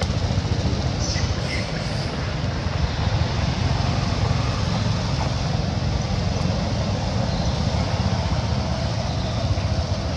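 Steady low rumble with an even hiss over it, with no distinct events.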